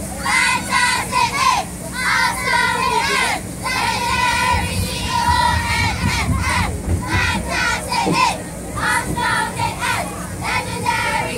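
A squad of cheerleading girls shouting a cheer together in short chanted phrases, with the hum of a crowd underneath.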